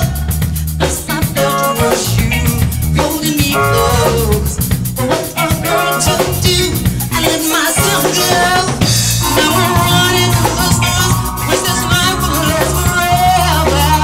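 A live R&B band playing: a woman sings lead over electric bass and drum kit, with guitar and keyboard.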